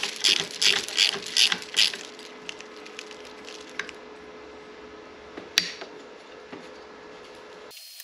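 Hand ratchet with a T30 Torx bit clicking in quick repeated strokes, about three a second, as a handlebar-end mirror bolt is undone; after about two seconds the clicking stops, leaving a few scattered clicks and one sharp click about five and a half seconds in.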